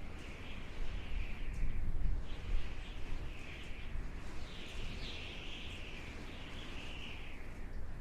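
Howling desert wind: a gusting hiss over a low rumble, with a high whistling tone that rises and falls, swelling most strongly from about halfway to near the end.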